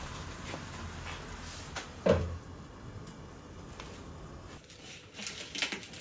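Gas burner hissing steadily under an empty steel frying pan, with one sharp knock about two seconds in. The hiss stops past the middle, followed by a few light clicks.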